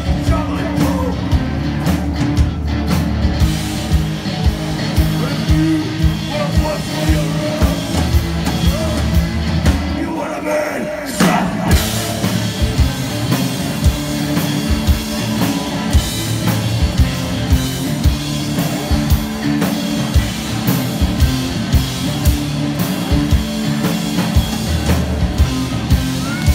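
Live rock band playing loudly: electric guitar chords over a steady drum-kit beat.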